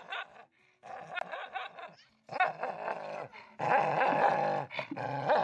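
A dog growling in a run of rough bursts, five or so, with short pauses between them.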